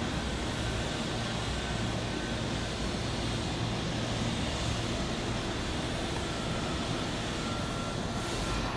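Electric commuter train running at the station platform: a steady rumble of wheels and running gear with a faint whine, and a brief hiss near the end.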